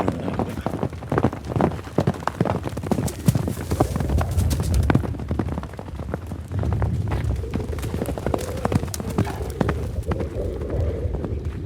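Horses running, their hooves striking the ground in dense, irregular hoofbeats over a low rumble, easing briefly about halfway through.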